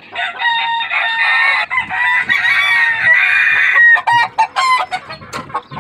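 Gamecock roosters crowing, their crows overlapping for about four seconds, followed by a run of shorter calls near the end.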